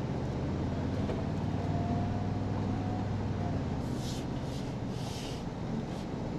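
Inside the cab of a 2023 Toyota Tundra TRD Pro, its twin-turbo V6 hybrid powertrain runs with a steady low drone as the truck rolls slowly along a dirt trail, with tyre noise underneath. A few brief hisses come about two thirds of the way through.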